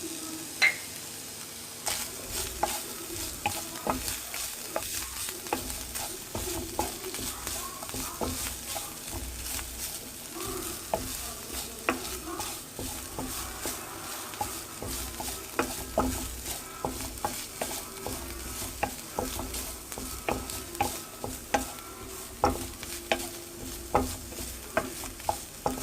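Food sizzling in a frying pan while being stirred, with many irregular clicks and scrapes of the utensil against the pan.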